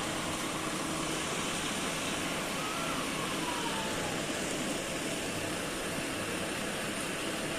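Hindware Snowcrest 38-litre air cooler running, its fan blowing a steady rush of air through the front louvres.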